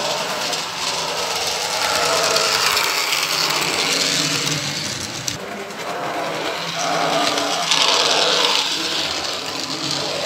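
HO-scale model railcar running on the layout's track, its small electric motor and wheels whirring continuously. It is louder between about two and four seconds in and again near the end.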